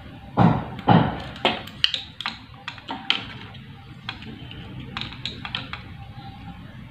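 Repeated banging knocks about half a second apart, loud for the first second and a half, then dying away into a few lighter taps and clicks over a low steady background noise.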